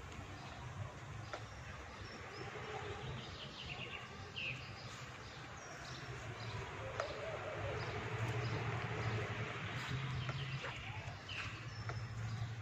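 Outdoor ambience: small birds chirping in short calls now and then over a steady low hum.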